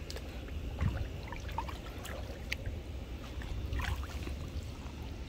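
Pool water splashing and lapping as a swimmer moves through it, with a few brief small splashes over a low, uneven rumble.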